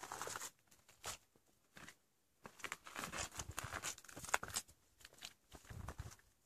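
Footsteps crunching on gravel and dry grass, uneven, with a short pause about two seconds in.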